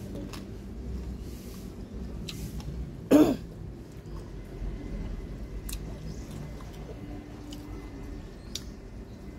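A person clears their throat once, a short sharp burst about three seconds in, over a low steady background rumble with a few faint clicks.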